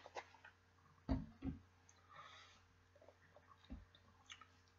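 Quiet handling noises from a plastic drink bottle being put down after a drink: two soft thuds close together about a second in, a short breathy rustle, then a third thud and a few faint clicks.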